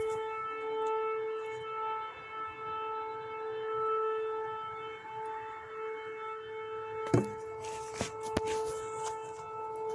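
Civil-defence (air-raid) siren holding one steady, unwavering tone, its level slowly swelling and fading. A few sharp knocks come about seven to eight seconds in.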